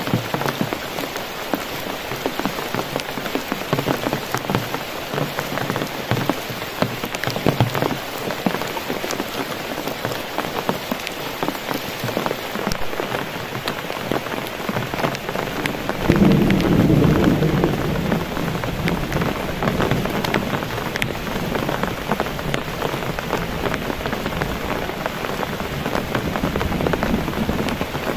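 Heavy rain falling on a camping tarp and forest foliage, with many single drops tapping on the tarp. About sixteen seconds in, a low rumble of thunder comes in suddenly, swells for a couple of seconds and slowly fades under the rain.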